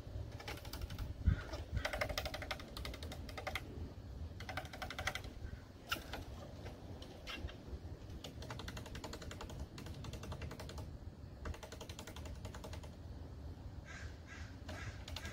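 A squirrel chattering: bouts of rapid, harsh clicking calls repeated again and again, typical of a squirrel's alarm chatter.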